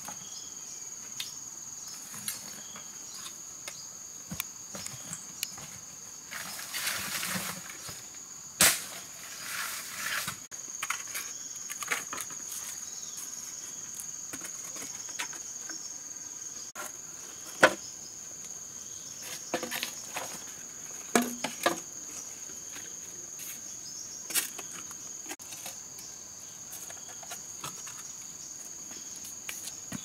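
A steady, high insect drone, with scattered sharp knocks and clatter of flat stones and wooden poles being set in place, and a couple of stretches of rustling in dry leaves.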